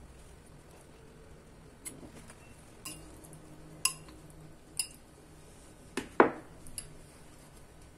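A metal spoon clinking against a ceramic bowl of chicken filling, short sharp clinks roughly once a second, some with a brief ring. The loudest, a heavier knock, comes just after six seconds in.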